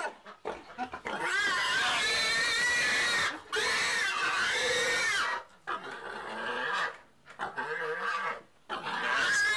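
Pigs squealing: two long, loud squeals in the first half, then shorter, quieter squeals, with another loud one near the end.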